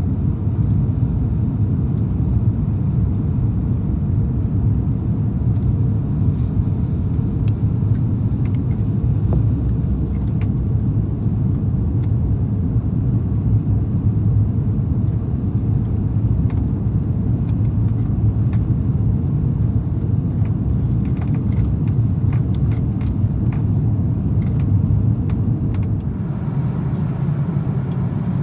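Airbus A340 cabin noise: a steady low roar of the engines and airflow, with a few faint clicks in the middle and a slight drop in level near the end.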